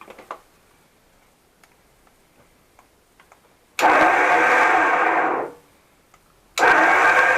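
Electric winch motor on a Land Rover Discovery 2 running in two short bursts a few seconds apart. It runs even with the winch cutout switch in the off position, a sign that the cheap isolation switch has failed.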